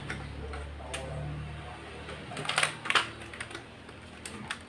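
Small hard computer parts being handled: a few sharp clicks and clacks, the loudest pair about two and a half and three seconds in, over a low hum during the first two seconds.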